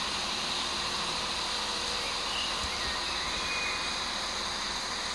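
Steady background noise of a railway station platform under its canopy, with the hum of distant trains.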